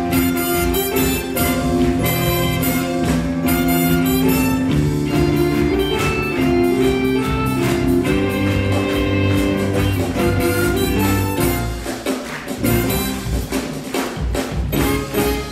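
Upbeat instrumental show music for a stage dance break, with a steady beat under long held chords and a melody line. The low end drops away briefly about twelve seconds in, then comes back.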